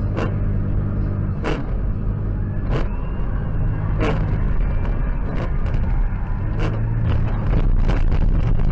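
Car interior: a steady low drone of engine and road noise, with a windshield wiper knocking at the end of each sweep, about once every second and a quarter.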